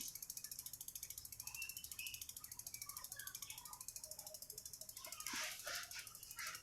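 Bicycle rear hub's freewheel ratchet clicking steadily and rapidly, about ten ticks a second, as the wheel spins freely or the cranks turn backward.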